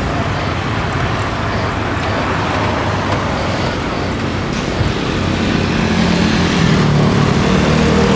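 Boeing 787-9 jet engines at takeoff power: a steady, loud rush, with a low hum that grows in and gets a little louder in the second half as the airliner departs.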